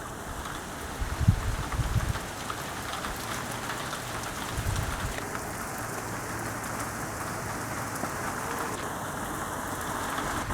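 Steady thunderstorm rain falling, with many small drop taps. Low buffeting comes in the first two seconds, then the rain continues evenly.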